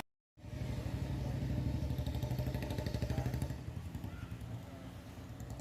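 Motorcycle engine running with a steady, rapid pulse, dropping slightly in level near the end.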